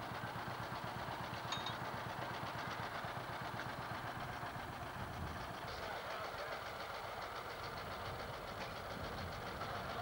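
Farm tractor engine running steadily at low revs, with a fast, even beat.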